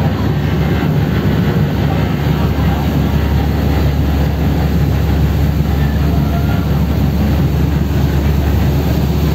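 Tour boat's engine droning steadily under way, heard from inside the passenger cabin, with a rush of water and wind from the wake.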